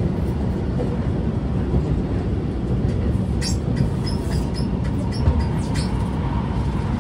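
Cabin running noise of an SMRT R151 metro train under way: a steady low rumble of wheels on track. About halfway through comes a run of short, high squeaks from the train's squeaky gangway.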